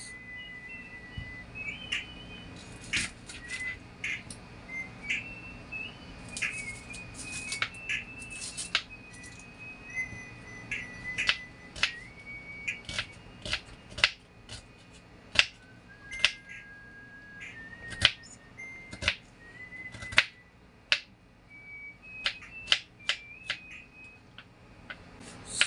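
Kitchen knife slicing through a red onion and knocking on a bamboo cutting board in irregular sharp chops. Under them runs a faint whistled tune of held notes.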